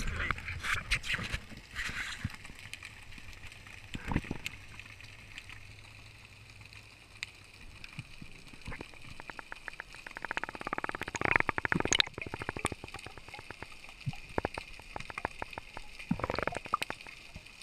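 Water gurgling and sloshing as picked up by a camera underwater, with scattered clicks and bursts of rapid clicking about ten seconds in and again near the end.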